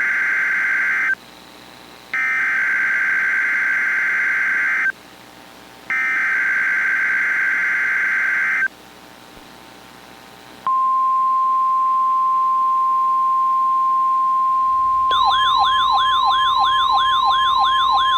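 Emergency Alert System SAME header data bursts: three harsh, buzzing screeches, each just under three seconds long with about a second's gap, the first already under way. They encode the incoming weather alert. Then the steady 1050 Hz NOAA Weather Radio warning alarm tone sounds, and about fifteen seconds in a warbling siren tone joins it, rising and falling about three times a second.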